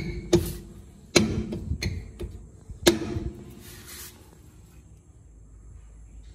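Metal rear brake drum of a Honda City being knocked and worked loose from the hub: about five sharp metallic knocks with a short ring in the first three seconds, then a brief scrape.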